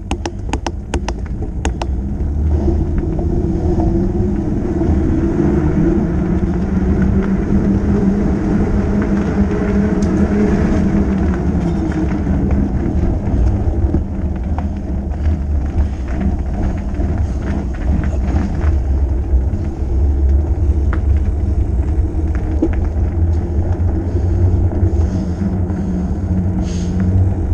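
Fat bike rolling along a paved lane, heard from a camera on the bike: a steady low rumble of tyre noise and wind on the microphone. A quick run of clicks and rattles comes in the first two seconds.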